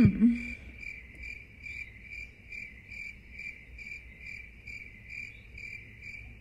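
Crickets chirping in a steady high pulse, about two chirps a second, after a brief low hum right at the start.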